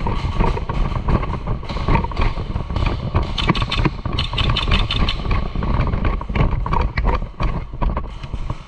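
Loud, rough breathing through a gas mask's filter, going steadily on, with footsteps and gear clattering.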